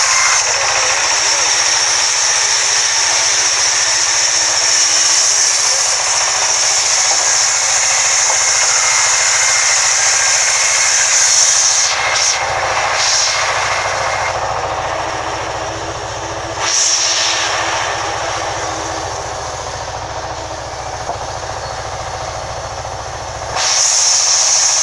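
Sawmill band saw running and ripping a long slab of wood, a steady loud machine noise with a high hiss from the cut. The high cutting sound drops away for much of the second half, the whole sound turning quieter, then comes back loud near the end.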